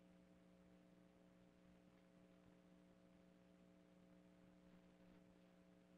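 Near silence: a faint steady hum over low hiss.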